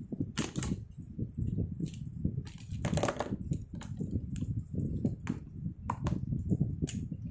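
Plastic pens and markers clattering and knocking against each other and the desktop as they are handled and sorted: a string of irregular clicks, busiest about three seconds in.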